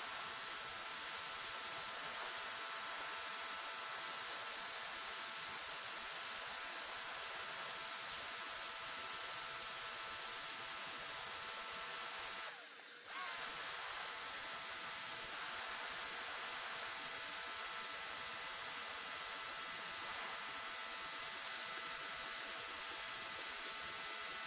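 Electric pressure washer running: a steady motor and pump whine over the hiss of the spray. About halfway through it cuts out for a moment, then the whine picks back up.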